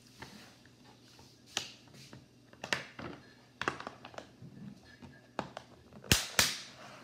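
Small objects being handled on a tabletop: a string of separate sharp clicks and taps, the loudest two in quick succession about six seconds in.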